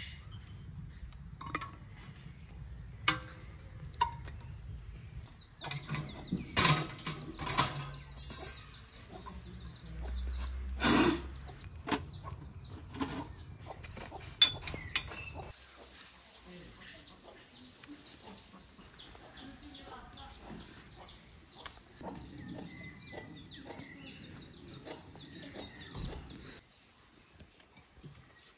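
Metal clinks and knocks of tongs and a samovar as hot coals are dropped into its fire tube and the chimney pipe is fitted, sharp strikes scattered through the first half. After that, birds chirping quickly and steadily until the sound drops off near the end.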